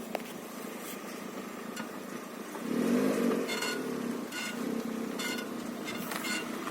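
Lada Vesta's rear suspension creaking and squeaking in short, irregular squeaks over a steady running hum from the car, with a louder surge about three seconds in.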